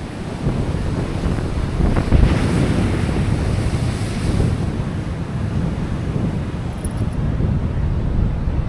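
Sea waves washing on the shore, one wave surging and breaking about two seconds in, with wind buffeting the microphone in a constant low rumble.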